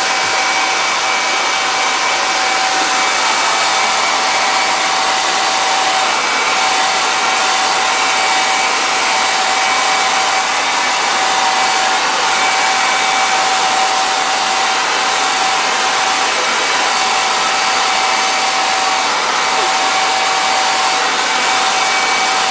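Handheld hair dryer running steadily, blowing air with an even rush and a steady motor whine.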